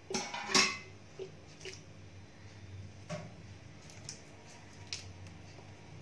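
Kitchen dishes clinking twice in the first second, then a few faint light taps as charred roasted brinjals are picked up off the plate.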